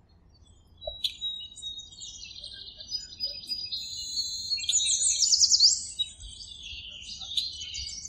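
Birds chirping and trilling in high-pitched, overlapping phrases, busiest about five seconds in with a fast run of repeated sweeping notes.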